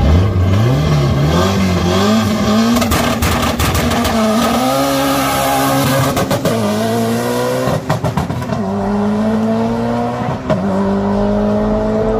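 Subaru Impreza launching hard from a drag-strip start line. Its engine revs climb steeply off the line, then pull up through the gears, the pitch dropping back at each of several upshifts before rising again.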